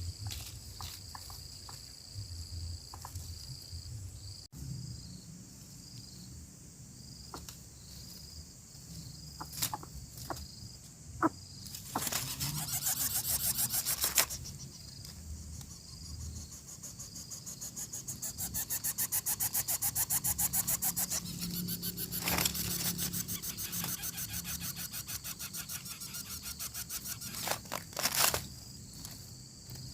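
Lesser coucal nestlings in the nest begging for food brought by a parent: bursts of rapid, pulsing calls with scuffling, loudest about halfway through and again near the end. Crickets chirp steadily throughout.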